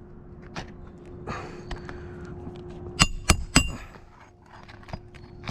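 Hammer driving roofing nails back into an asphalt shingle: a few light taps, then three quick hard metallic strikes about three seconds in.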